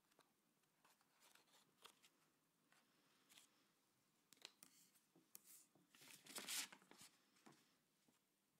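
Faint rustling and crinkling of folded paper being handled and squeezed, in short scattered bursts, the loudest run about six seconds in.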